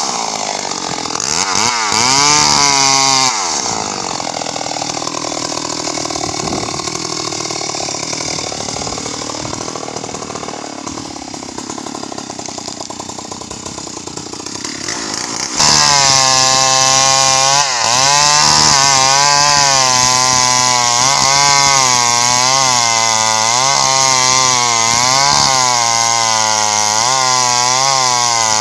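Stihl MS 381 two-stroke chainsaw cutting into kapok tree trunks, its engine pitch dipping under load and rising again as the bar bites and eases. It runs quieter for about twelve seconds after the first few seconds, then comes back loud and steady in cut about halfway through.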